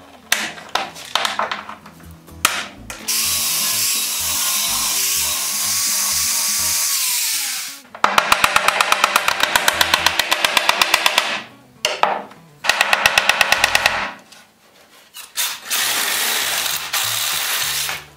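Workshop tool sounds on stagecoach ironwork and wood: a few sharp knocks and clicks at first, then power tools running in bursts, two of them with a fast, even stroke rhythm. Near the end a reciprocating saw runs steadily.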